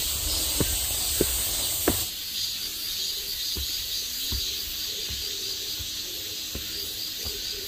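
Footsteps on a rocky, leaf-covered forest trail over a steady hiss of insects. About two seconds in, the steps grow fainter and the insect sound pulses quickly.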